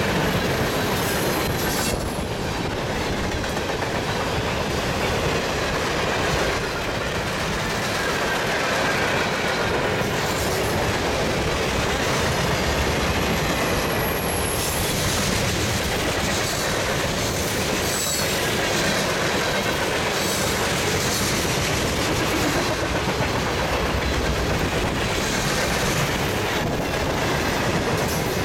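Loaded freight cars rolling past on a curve: a steady loud rumble and clatter of steel wheels on rail, with thin, high wheel-flange squeals coming and going as the wheels grind through the curve.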